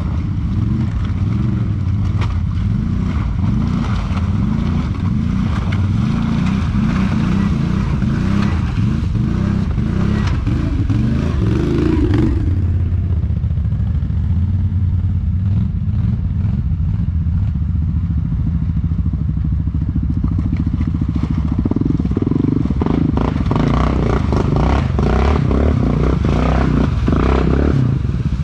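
ATV engine running under way, with clattering over rough ground. About halfway through the high hiss and the clatter drop away and the engine runs steadier; the clatter picks up again near the end.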